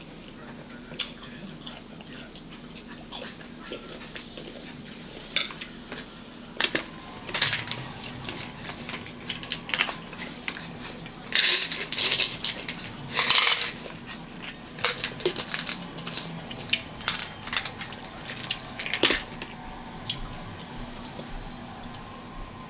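Eating noises at a table: scattered crisp crunches and small clicks and knocks of plates and cutlery, with two louder noisy bursts of about half a second each a little past the middle.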